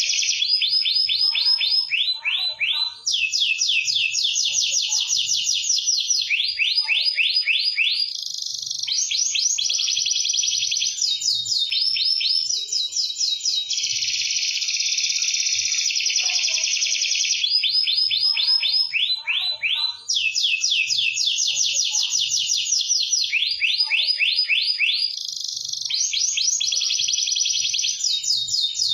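Canary singing a long, continuous song of fast rolling trills, switching to a new repeated phrase about every second, with a brief break twice.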